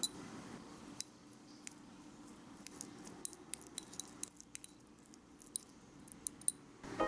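Tiny metal spoon clicking and scraping against a small ceramic bowl while stirring a soft mix of chopped egg and mayonnaise, with irregular light clinks that come faster toward the end.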